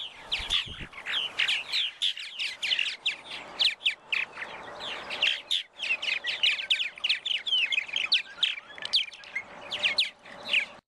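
A colony of purple martins chirping and chattering, many quick, gliding calls overlapping without pause.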